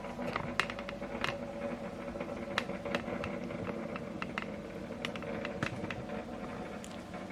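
HP Envy 6030e's flatbed scanner running a scan: a steady motor hum with irregular light clicks over it.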